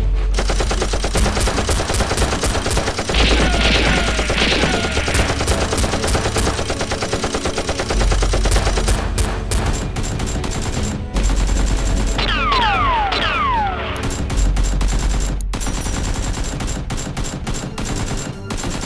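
Rapid automatic gunfire sound effects in dense bursts, dubbed over a Nerf blaster battle. A couple of falling whistles cut through about three seconds in and again around twelve seconds in. Underneath runs a music track with a pulsing deep bass.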